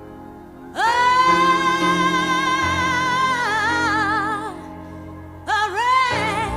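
A high solo singing voice holds one long note over a soft low accompaniment, plain at first and then with vibrato. A shorter note that swoops upward follows near the end.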